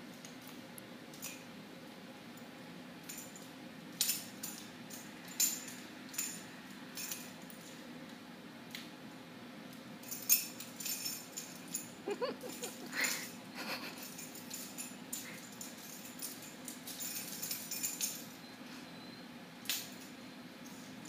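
A dog's claws clicking and scrabbling irregularly on a hardwood floor as it pounces after a laser dot, with a brief rising squeak about twelve seconds in. A faint steady hum lies underneath.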